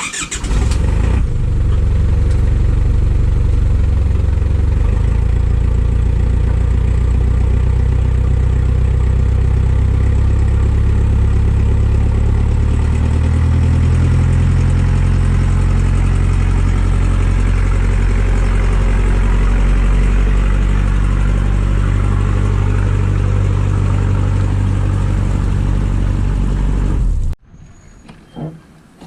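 Engine running steadily under load, loud and unbroken, cutting off abruptly near the end.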